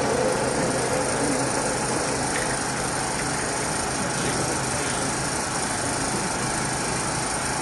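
Steady background noise of a gathered audience heard through a loudspeaker system, an even hiss and hum with no recitation or clear voice.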